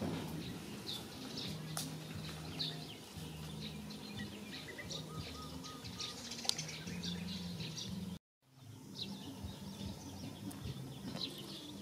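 Small birds chirping and tweeting in short scattered calls over a low, steady hum. The sound cuts out completely for a moment about eight seconds in.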